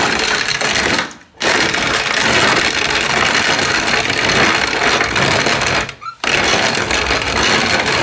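Manual hand-cranked corn grinder crushing dried corn kernels as its grinding wheel spins, a steady grinding rattle. It stops briefly twice, about a second in and about six seconds in.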